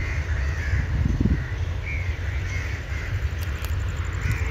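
Crows calling again and again over a steady low rumble.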